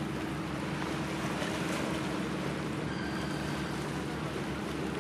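A ship's engine droning steadily as a low, even hum, under a wash of wind and water.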